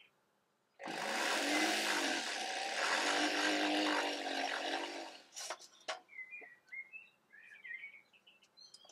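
A small handheld power tool runs steadily for about four seconds as its fine point cuts a line into a sterling silver blade. It stops, and then come a few light clicks and birds chirping.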